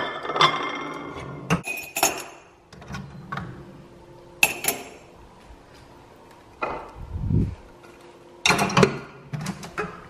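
Mugs and dishes clinking and knocking against each other as they are lifted out of a dishwasher rack and put away: a run of separate clinks, with a dull thump about seven seconds in.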